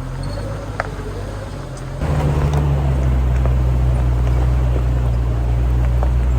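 Jeep engine running at low speed, a steady low drone. It gets louder about two seconds in, and there is a single sharp click about a second in.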